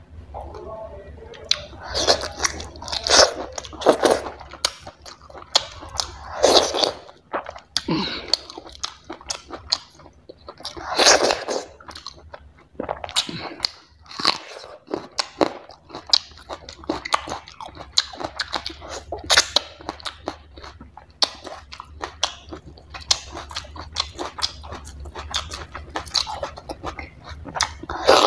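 Close-miked eating sounds of a person chewing barley dhido and chicken curry by hand: wet chewing and lip smacking, with several louder crunching bites, mostly in the first half.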